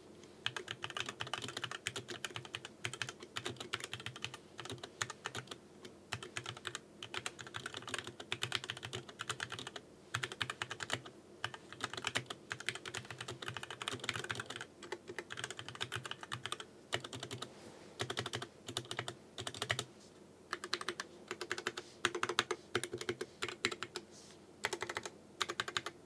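Typing on a HyperX Alloy Origins 60 keyboard with HyperX Red linear switches and PBT keycaps: a fast, continuous stream of keystrokes with a muted clatter, not clicky, pausing briefly about twenty seconds in.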